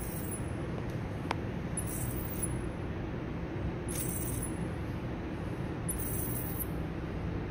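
CRT deflection yoke squealing in short high-pitched bursts about every two seconds, over a steady low hum: the sign of a short circuit in the yoke. A single sharp click comes about a second in.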